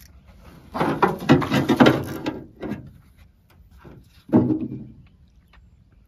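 A hooked fish thrashing and splashing at the water's surface beside a canoe, in two loud bouts: the first about a second in and lasting about two seconds, the second shorter, a little past four seconds.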